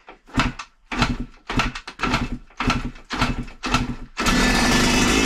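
Freshly rebuilt Yamaha YZ two-stroke single-cylinder dirt bike engine, bored out to 144 cc with an FMF exhaust, being started for the first time: it fires in short sputtering bursts about twice a second, then catches about four seconds in and runs steadily.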